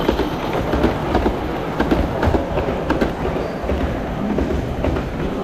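Live steam model locomotive running on the layout's track, a steady rumble with rapid, irregular clicking from wheels and rolling stock on the rails.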